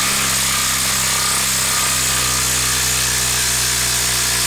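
Ryobi brushless impact driver hammering without a break as it drives a 6-inch lag screw into a wood stump. It is a loud, even rattle whose pitch eases down slightly under the growing load.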